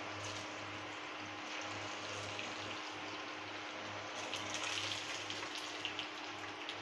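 Kothimbir vadi pieces deep-frying in hot oil in a kadhai: a steady sizzle. It grows louder and crackly for a couple of seconds after another piece is slipped into the oil about four seconds in.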